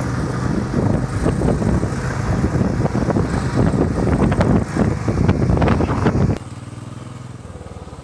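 Motorcycle on the move: loud, gusty rushing noise over the engine, dropping suddenly about six seconds in to a quieter, steady engine hum.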